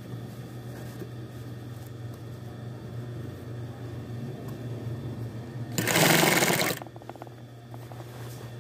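Single-needle industrial sewing machine stitching a sleeve seam, its motor humming steadily under the needle's run. About six seconds in comes a loud burst lasting about a second.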